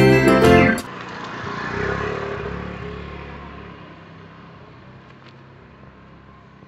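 A short intro jingle ends abruptly under a second in. A rushing whoosh follows, swelling for about a second and fading over the next two, then only faint background noise remains.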